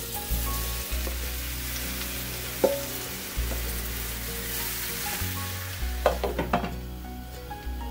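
Cut mushrooms sizzling in hot oil in a frying pan as they go in and are stirred with a wooden spoon. There is a sharp knock about a third of the way in and a quick run of knocks a little past three-quarters of the way through.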